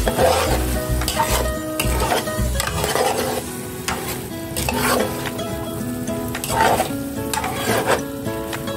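A spoon stirring a thick, frying tomato and mushroom stew in a pot, scraping against the pot roughly once a second, with the stew sizzling. Background music with held notes plays underneath.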